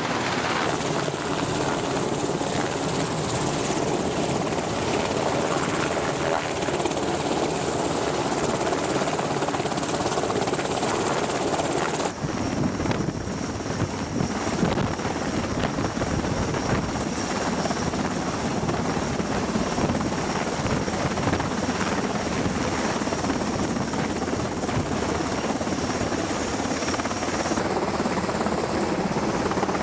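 Navy MH-60 Seahawk helicopter hovering with a sling load beneath it: steady rotor and turbine noise. The sound changes abruptly about twelve seconds in, then carries on as the same steady helicopter noise.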